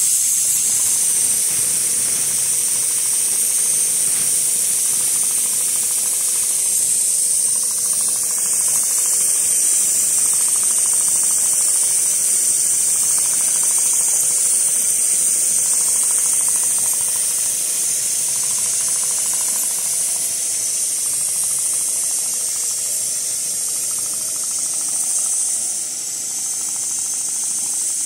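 CNC leather sewing machine stitching continuously at speed: a fast, even needle clatter under a steady high hiss.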